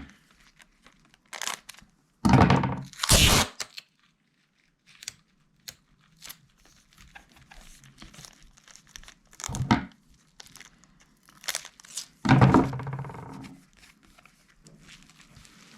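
Adhesive tape being pulled off the roll in several separate ripping pulls, the longest near the end, with crinkling as strips are pressed down over cracked tablet screen glass.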